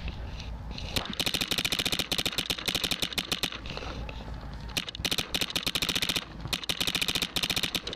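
Empire Axe electronic paintball marker firing long, rapid strings of shots, many a second, in ramping full-auto-style fire. The strings start about a second in and stop briefly twice before resuming.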